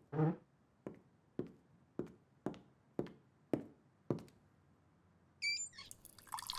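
A door pushed shut, then footsteps on a hard kitchen floor at about two steps a second. Near the end a cross-head kitchen tap squeaks briefly as it is turned, and water starts running from it into a glass.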